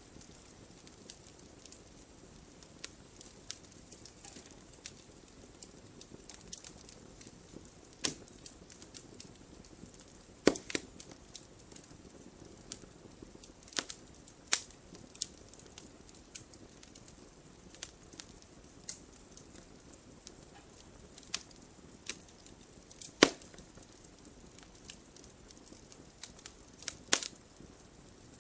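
Wood fire burning in a fireplace: a soft steady hiss with frequent small crackles and a few louder snaps and pops, the loudest about two-thirds of the way through.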